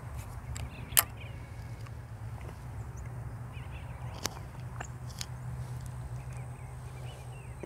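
Fishing reel being cranked during a lure retrieve: a steady low whir, with one sharp click about a second in and a few softer clicks a few seconds later. Faint bird chirps.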